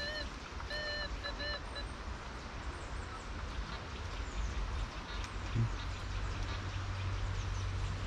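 Metal detector's electronic tone signalling a target: a beep and then three quick beeps in the first two seconds, each swelling slightly up and down in pitch.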